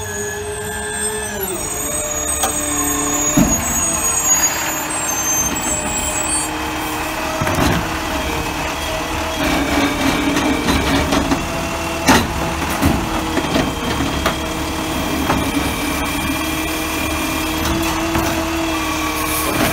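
Automated side-loader garbage truck pulling up and working at the curb: its diesel engine runs with a steady drone, dropping in pitch as it slows about a second or two in. Several clunks from the truck and its hydraulic arm, the loudest about twelve seconds in, as the arm reaches out to grip the cart.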